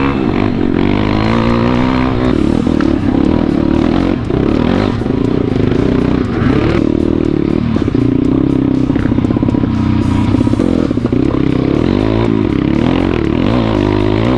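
MRF 140 pit bike's single-cylinder four-stroke engine, fitted with a Z40 camshaft, revving up and down repeatedly as the bike is ridden over a dirt forest trail. Background music plays under it.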